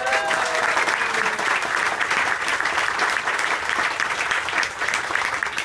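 Crowd of a couple of hundred people applauding, a dense patter of many hands clapping that holds steady and eases off slightly near the end.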